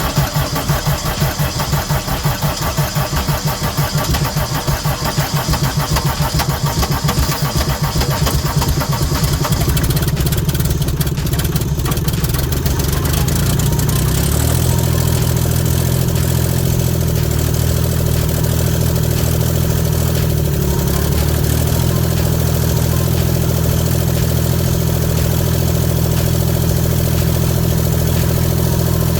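Gehl 4640 skid steer's Deutz diesel engine just after starting, running with a fast, uneven chug at first and settling into a steady idle after about twelve seconds.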